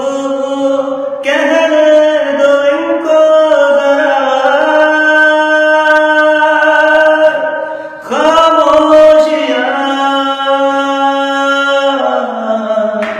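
A man singing unaccompanied, drawing out long held notes with the pitch bending within them, taking a short break about a second in and again about eight seconds in.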